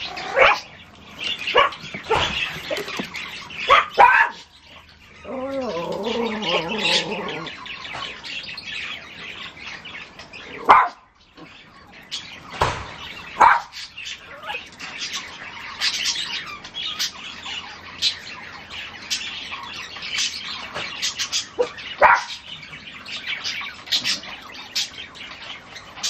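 Yorkshire terriers giving short, high yaps now and then, with a wavering drawn-out call from about five to seven seconds in and bird chirps mixed in.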